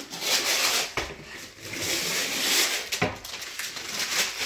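Construction adhesive being run onto the back of a shiplap board from a caulking gun: a hissing squeeze of glue, with sharp clicks of the gun's trigger about a second in and again about three seconds in.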